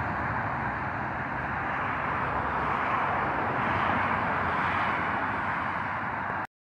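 Road traffic noise on a multi-lane highway: a steady hum of engines and tyres from cars and a minibus on the road. It cuts off abruptly for a moment just before the end.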